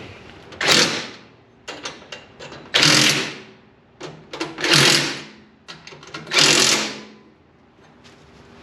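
Power driver running in four short bursts, backing out the bolts that hold the casters on a rolling tool chest, with small clicks of metal parts being handled in between.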